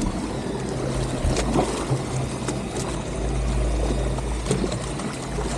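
Boat engine running steadily, a low even hum under a haze of wind and water noise, with a few faint clicks.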